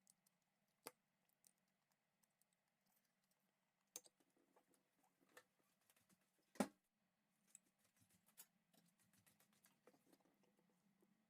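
Near silence broken by scattered small clicks and taps, the loudest a single sharp knock about two-thirds of the way in, with a run of faint light ticks near the end.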